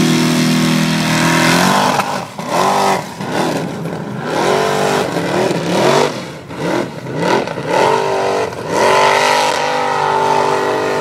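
Formula Offroad buggy's engine revving hard as it climbs a steep sand slope. It rises and holds high for nearly two seconds, then goes through a run of short rising and falling revs as the throttle is worked, and holds high again near the end.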